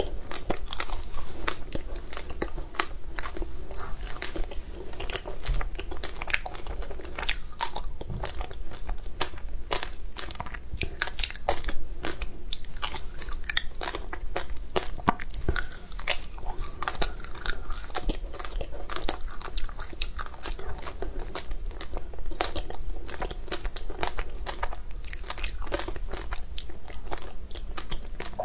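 Close-up crunching and chewing of frozen ice bars dusted with matcha green tea powder: many irregular crisp crunches as the ice is bitten and ground between the teeth.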